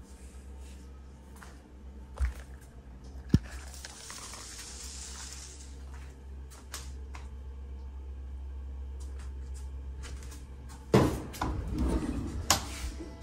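Quiet room tone with camera handling and a couple of sharp clicks, then near the end a closet door is pulled open with a clatter of knocks and rattles.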